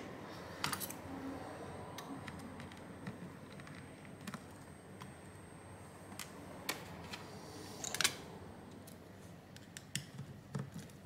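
Sparse light clicks and taps of small tools and phone parts being handled on a work mat. The loudest comes about eight seconds in, with a short cluster of taps near the end.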